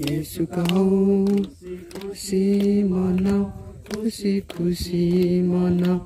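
A man singing unaccompanied, holding long steady notes of about a second each with short breaks between phrases.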